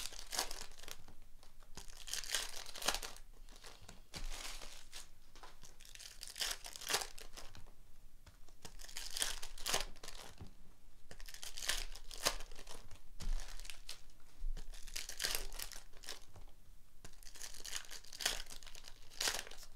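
Foil card packs of Donruss Optic basketball being ripped open and crumpled by hand, a crinkling tear every couple of seconds.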